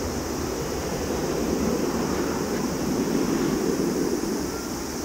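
Boeing 737-800 freighter's CFM56-7B turbofan engines at takeoff power, heard as a steady rushing noise that swells about midway and eases toward the end as the jet passes.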